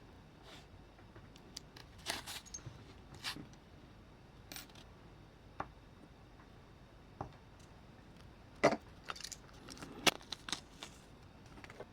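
Scattered light clicks and clinks of small metal parts being handled, with the sharpest clinks a little before 9 seconds in and again at about 10 seconds.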